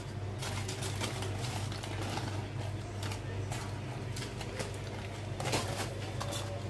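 Aluminium foil crinkling and crackling as a foil parcel is pulled open with metal tongs, over a steady low hum.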